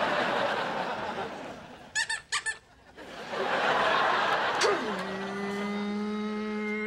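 Studio audience laughter, with a man imitating a race car with his mouth: a few short high squeaks about two seconds in, then from about five seconds a steady buzzing engine noise made through pursed lips.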